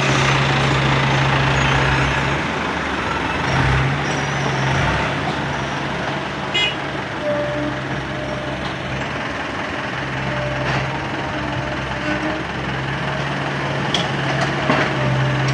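Excavator's diesel engine running steadily as the machine works, its low note fading out and back in several times.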